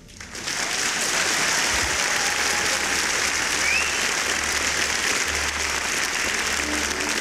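Audience applauding, starting suddenly and holding steady and dense.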